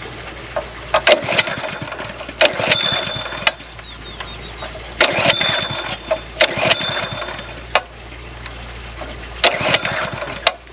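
A small engine runs steadily under a series of sharp metallic knocks. The knocks mostly come in pairs about a third of a second apart, and several ring briefly.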